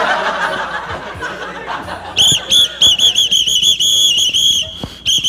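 A pea whistle blown in a string of short, shrill, trilling blasts, starting about two seconds in.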